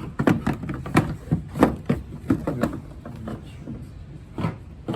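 Hard plastic clicks and knocks from a tail light housing being handled and pushed into place on its mounting prongs. There is a quick run of clicks over the first three seconds, then a couple of isolated knocks.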